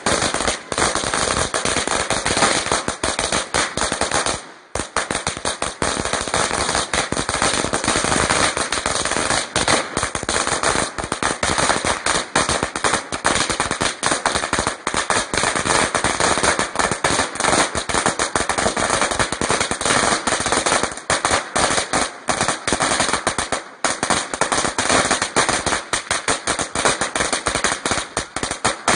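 A long string of firecrackers going off on the ground in a rapid, unbroken chain of bangs, with one short break about four and a half seconds in.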